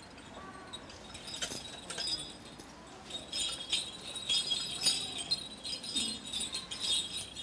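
Light metallic jingling and clinking from metal church vessels being handled and shaken, many quick strokes from about three seconds in.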